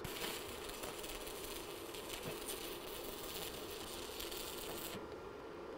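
Electric welding arc running in a steady hiss, stopping abruptly about five seconds in as a weld on the steel reinforcing bar is finished.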